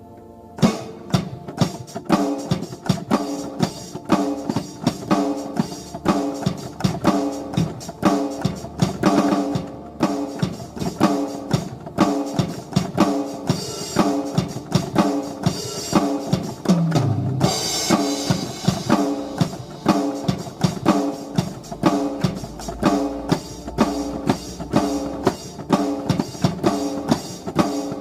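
Yamaha MOX8 synthesizer playing a preset with a drum-kit groove under a repeating pitched pattern at a steady beat, with a short falling sweep about two-thirds of the way through.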